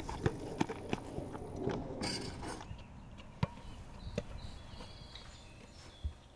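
Basketball dribbled on an outdoor asphalt court: quick, even bounces about three a second for the first two seconds, then a few single bounces.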